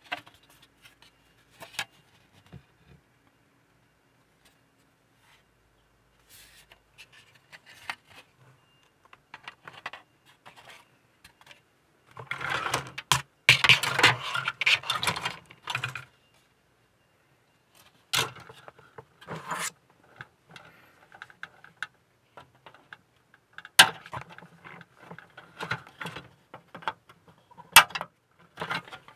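Plastic model-kit parts being handled: the styrene hull halves and sprue rattle, rub and scrape against each other and the desk, with a dense stretch of rustling in the middle. Several sharp clicks in the second half, typical of sprue nippers snipping parts from the runner.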